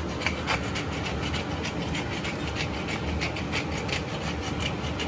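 Pork cooking in a wok over a gas burner on maximum flame: a steady low rumble and sizzle, with many short sharp ticks and scrapes through it.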